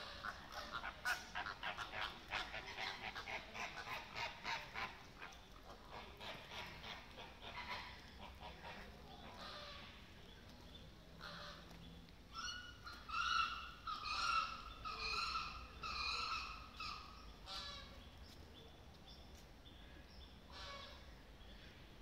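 A flock of flamingos honking and gabbling: a fast run of short calls over the first several seconds, then a louder series of nasal, goose-like honks from a little past halfway until a few seconds before the end.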